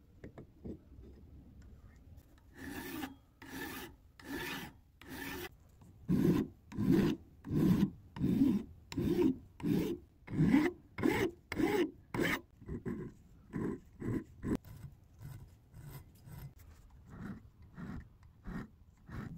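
Hand file rasping back and forth over a brass casting held in a vise, in even strokes about one and a half a second. The strokes are heavier in the middle and grow lighter near the end.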